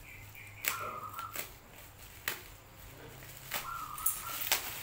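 Plastic parcel wrapping and packing tape being ripped and crinkled off a box by hand: a handful of sharp crackling rips, two of them drawn out into a brief squeal as the tape pulls away.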